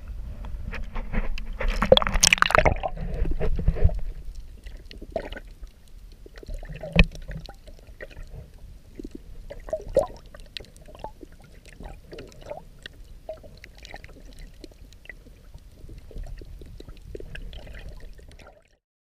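Water sloshing and splashing, loudest about two seconds in, then heard from underwater as quieter gurgling with scattered small clicks. The sound cuts off suddenly near the end.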